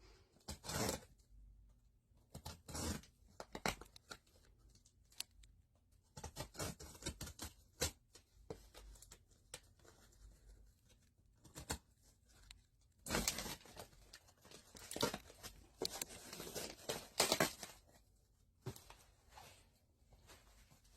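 Cardboard shipping box being cut open with a blade and torn: irregular scraping, slicing and tearing strokes, busiest in a long run near the end.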